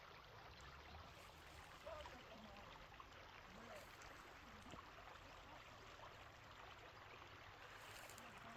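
Faint, steady babbling of a small brook, water running and gurgling over stones.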